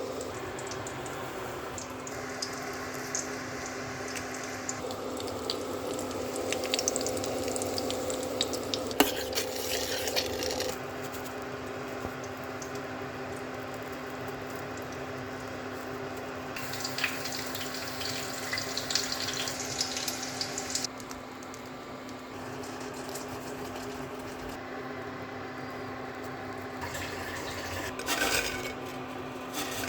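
Kitchen cooking sounds: food sizzling and crackling in a hot pan in several stretches that start and stop abruptly, with utensils clinking on cookware, over a steady low hum.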